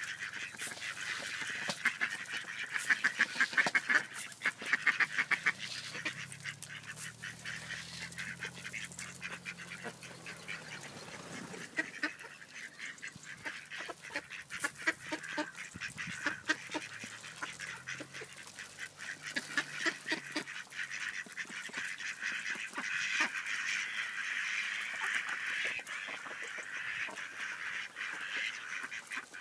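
Flock of mallard ducks calling: a continual chorus of quacks and chatter from many birds at once, busiest near the start and again toward the end.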